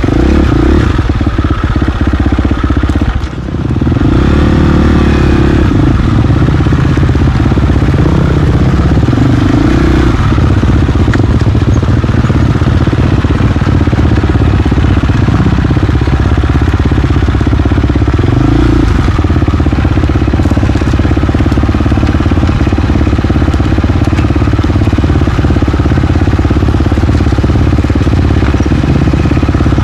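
KTM XC-F 350 single-cylinder four-stroke dirt bike engine running under load on a trail ride, its note rising and falling with the throttle. The level drops briefly about three seconds in as the throttle is rolled off, then picks back up.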